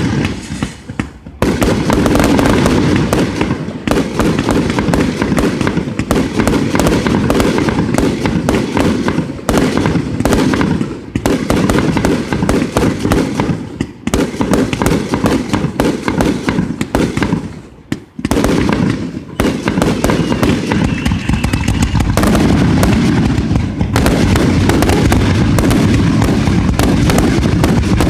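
Fireworks going off in a long, dense barrage of rapid crackling bangs, nearly continuous, with brief lulls about 14 and 18 seconds in.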